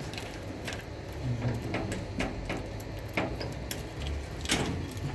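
Irregular sharp clicks and knocks over a low steady hum, the loudest about four and a half seconds in: handling and movement noise as the phone is carried.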